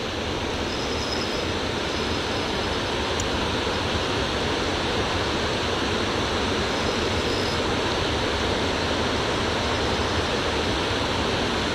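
Steady rushing of water pouring through a dam's open spillway gates, a little louder over the first couple of seconds and then even.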